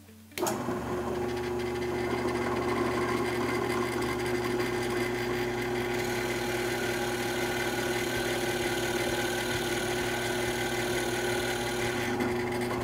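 Benchtop drill press motor starting about half a second in and running steadily with a constant hum, as a 7/16-inch brad point bit is fed down to bore a countersink into a wooden board.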